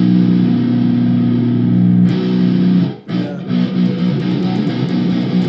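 Electric guitar played through an amplifier: a chord rings out for about three seconds, cuts off, then shorter, choppier notes follow.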